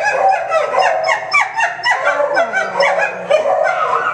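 Many kennelled dogs barking and yelping at once: short overlapping calls, several a second, without a break. One lower, drawn-out call comes a little past the middle.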